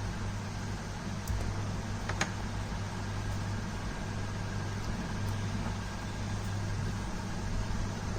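Steady low hum under an even hiss, with two faint clicks about one and two seconds in.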